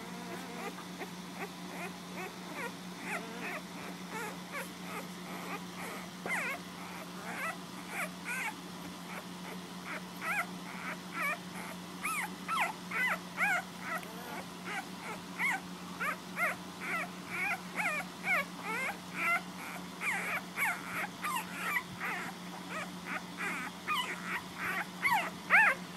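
A litter of nursing puppies squeaking and whimpering: many short, high squeals overlapping one another. They become busier and louder from about ten seconds in.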